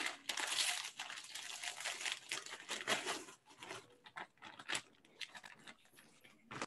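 Plastic bag of frozen cut leaf spinach crinkling as it is shaken and squeezed out into a pot of stew. The crinkling is dense for about the first three seconds, then thins to scattered rustles with one sharp click near the end.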